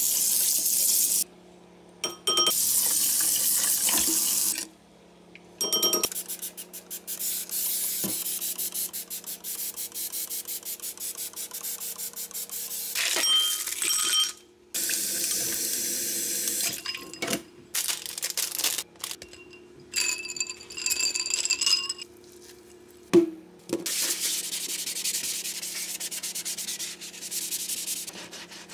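Stainless steel kitchen sink being cleaned in short cut-together takes: tap water running into the basin and a sponge scrubbing the steel in fast rubbing strokes. A brief high squeak comes about two-thirds of the way through.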